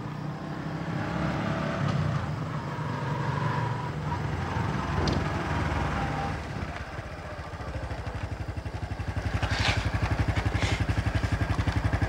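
Small motorcycle riding up and then idling with a fast, even putter that sets in about eight seconds in and grows louder. A few short clicks or rattles come around ten seconds in.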